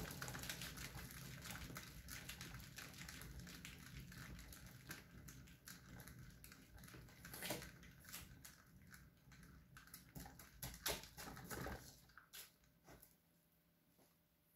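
Turntable spinning a paint-covered ceramic tile: a faint rumble with a dense, fine clicking rattle. It starts suddenly with the push and runs down over about twelve seconds, then a few scattered clicks.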